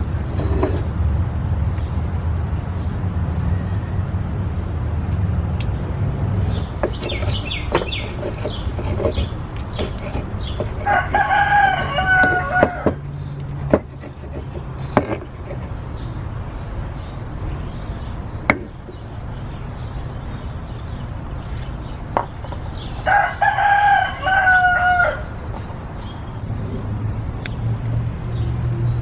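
A rooster crowing twice, about 11 and 23 seconds in, each crow about two seconds long and dropping in pitch at the end. Underneath runs a low steady rumble, with several sharp knocks in between.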